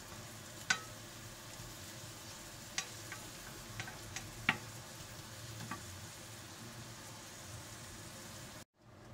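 Button mushrooms and onions sizzling steadily in a frying pan on low heat, with a spatula clicking against the pan several times as they are stirred. The sound cuts off suddenly near the end.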